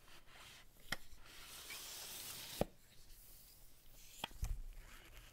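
A paper sleeve sliding over a long cardboard box: a dry rubbing hiss for about a second and a half that ends in a sharp tap as it seats, with light taps on the box. Near the end the box is set down on a mat with a soft low thump.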